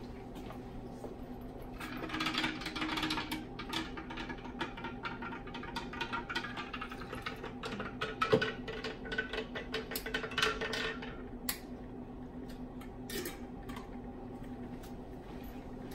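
Rustling and light clinks of a glass lab flask being handled at a stirring hot plate. They run from about two seconds in to about eleven seconds, with one sharper knock near the middle and a couple of single clicks after. A steady low hum runs underneath.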